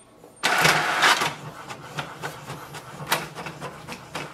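HP DeskJet 3772 inkjet printer's mechanism running while it makes a copy. A loud whirring burst comes about half a second in and lasts under a second, followed by quieter running with scattered clicks.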